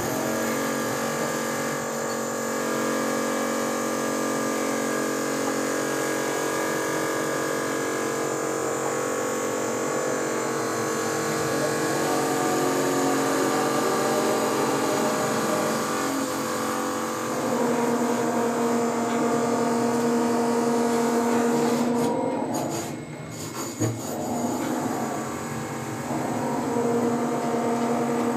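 Potain MCT88 tower crane's electric drive motors whining in steady, layered tones, heard from the operator's cab while it lifts and slews a load. The tones shift to a new pitch about two-thirds of the way through, drop away briefly with a couple of clicks, then resume.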